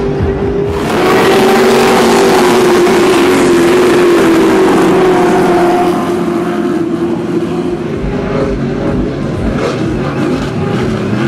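Off-road race vehicles passing on a dirt track, their engines running hard. The sound swells about a second in, with the engine note falling a little as they go by, then drops back to a steadier, more distant engine noise after about six seconds.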